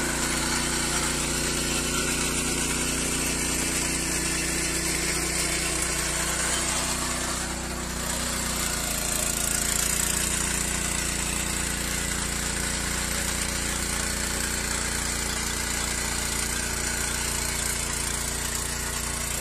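Small single-cylinder petrol engine of a walk-behind rotary tiller running steadily under load as its tines churn garden soil. The engine note dips briefly about eight seconds in, then runs on.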